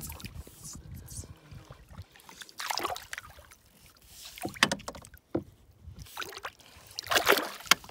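Lake water splashing and sloshing in uneven bursts as a big musky is held in the water beside the boat, the loudest splash near the end.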